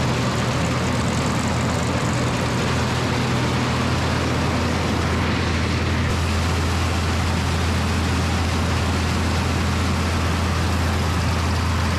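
International 686 tractor's engine running steadily, a low drone with mechanical clatter. The engine note shifts slightly about four seconds in.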